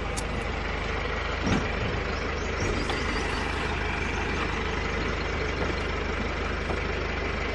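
A vehicle engine idling steadily, with a few light knocks and clicks over it.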